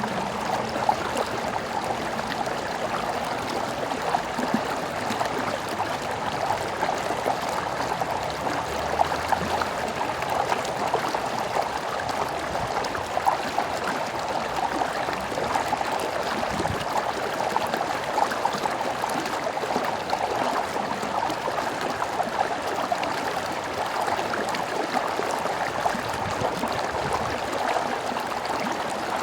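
Stream water flowing steadily, a continuous even rush without let-up.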